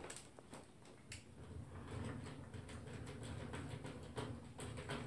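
Small poodle moving about in its wire crate: irregular light clicks and taps, with a low steady hum underneath from about a second in.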